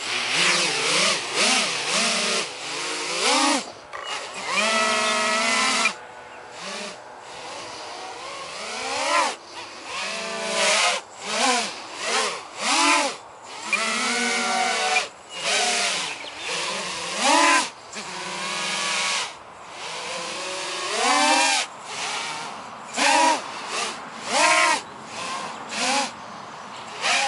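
Electric motors and propellers of a small 220mm 3D quadcopter with bidirectional props and ESCs, in flight. The whine rises and falls in pitch again and again with short throttle bursts, broken by a few quieter moments.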